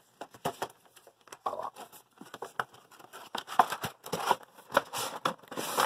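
Cardboard toy box and its plastic packaging being handled and pulled apart by hand: irregular clicks, scrapes and rustles as the figure's tray is worked out of the box.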